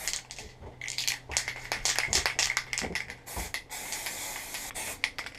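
Aerosol can of anti-rust primer spraying in short, uneven hissing bursts.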